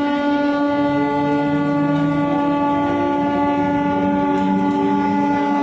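Electric multiple unit local train's horn sounding one long, steady blast that never wavers, continuing past the end.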